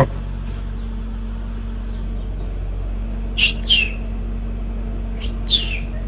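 Caged budgerigars giving two pairs of short chirps, each falling in pitch, over a steady low hum.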